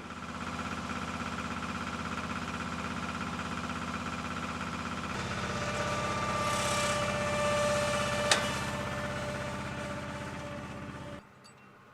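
Machinery engine running steadily with a low drone, a higher whine joining about halfway through and one sharp click a little past two-thirds in; it cuts off abruptly near the end.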